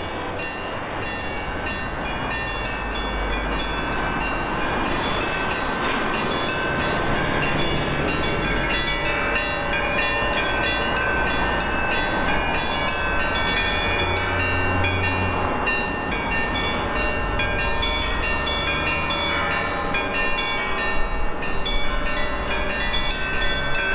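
Background music: sustained synth chords over a steady low bass, the notes shifting every second or so, with a swell in the high end near the end.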